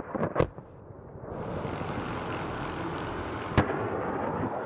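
MH-6M Little Bird helicopter flying overhead, its turbine and rotor running with a steady beat. Two sharp cracks stand out over it, one near the start and one about three and a half seconds in.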